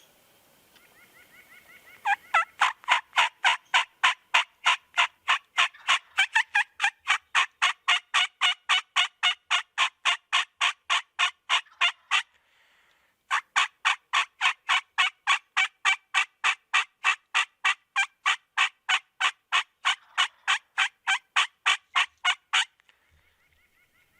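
A long, even series of turkey calls, about three and a half notes a second, in two runs of roughly ten seconds each with a brief pause between them.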